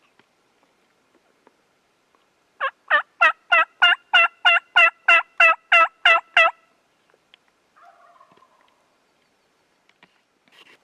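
Turkey yelping: a loud run of about fourteen evenly spaced yelps, nearly four a second, each note breaking from high to low. A fainter, short call follows a little later.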